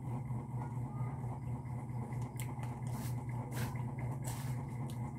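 Steady low hum, with faint scattered clicks and smacks from a man eating rice by hand.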